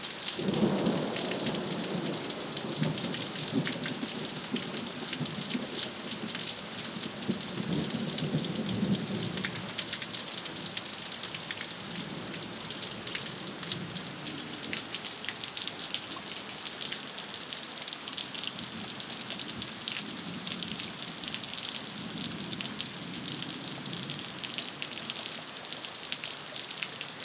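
Thunderstorm: steady heavy rain pattering on surfaces, with thunder rolling in about half a second in, loudest over the first several seconds, then fading and returning as weaker distant rumbles twice later on.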